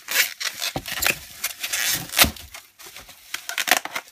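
Plastic bubble wrap crinkling and crackling in quick, irregular rustles as hands pick at it and pull it open.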